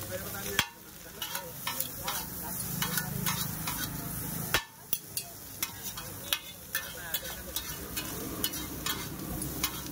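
Egg noodles sizzling on a large flat griddle while a metal spatula repeatedly scrapes and clacks against the plate, about two or three clacks a second. Two louder clacks, about half a second in and past the middle, are each followed by a brief dip in the sizzle.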